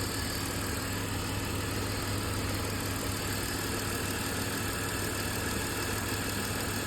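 BMW E46 engine idling steadily, with the cooling system being bled of air after a coolant refill.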